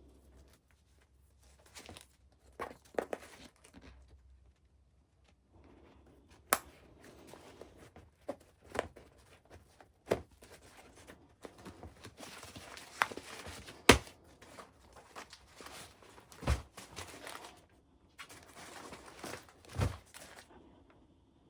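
Hands handling an ultralight backpack and its gear: rustling and crinkling of fabric and sheet material, with scattered sharp clicks and a few dull knocks.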